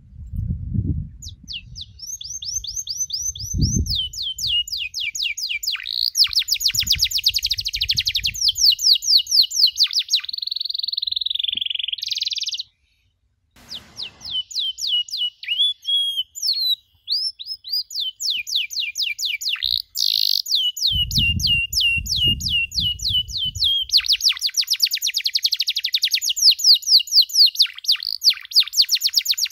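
Domestic canary singing a fast song of rapid repeated trills and chirps, with one long held note that rises at its end, broken by a couple of brief pauses. A few low rumbles sound underneath.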